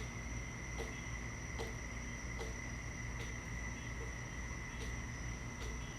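Faint steady background: a thin high whine with soft ticks roughly every 0.8 seconds over a low hum.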